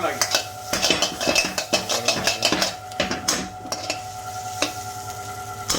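A metal spoon stirring and scraping in a pan of sizzling spiced chicken, with quick clinks of metal on metal that thin out after about three and a half seconds.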